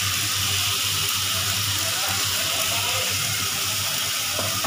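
Vegetables frying in oil in a steel kadai, a steady sizzling hiss, as wet ground masala paste is poured over them. A steady low hum runs underneath.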